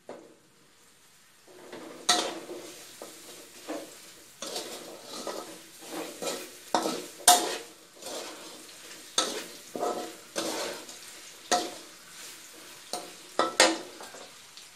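A metal spatula scrapes and knocks against a steel wok while stirring pieces of pork belly in a thick caramelised sugar glaze, with a faint sizzle underneath. The strokes start about a second and a half in and come irregularly, one or two a second.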